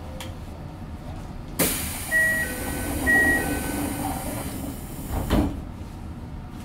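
Toei 5300 series subway car's doors closing: a sudden hiss of air, a two-tone door chime (high note then lower note) sounding twice, and a thud as the doors shut about four seconds later, over a steady low rumble.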